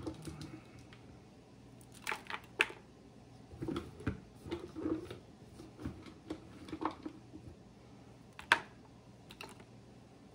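Irregular light clicks and taps of hard cocoa butter pieces being handled and dropped into a plastic container, with a few sharper knocks.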